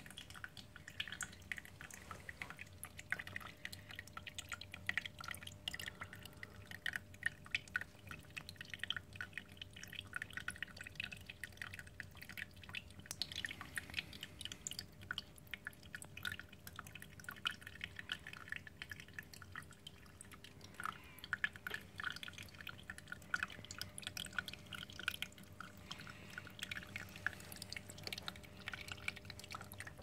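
Small vivarium waterfall: water trickling and dripping over wood and stones into a shallow pool, a continuous irregular patter of small splashes. A faint steady hum runs underneath.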